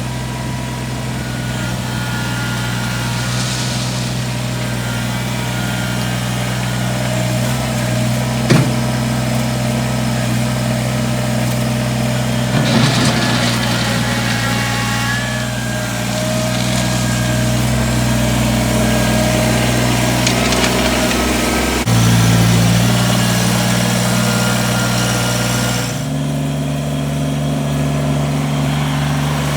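Tractor engine running steadily while moving rock, its note shifting a couple of times in the last third. A single sharp knock comes about eight seconds in, and a brief rattle a few seconds later.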